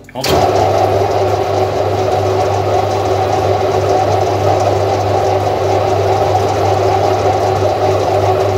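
Metal lathe switched on a moment in, then running steadily with its three-jaw chuck spinning, a constant motor hum under a steady whine from the headstock drive.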